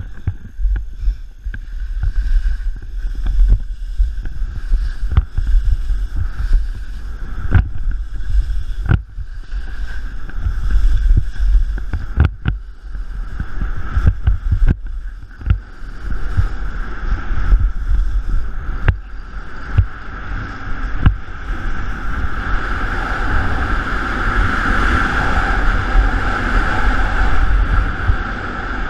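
Wind buffeting the microphone of a skier's action camera as a low, gusty rumble, with skis scraping over snow and scattered knocks from bumps. A rushing hiss swells over the last several seconds as the skier reaches about 40 mph.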